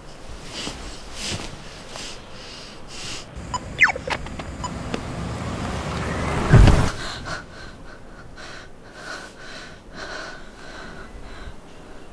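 A car rushing closer, swelling to a loud low peak about six and a half seconds in and then dropping away suddenly. Around it are short breathy sounds of a person breathing hard and gasping.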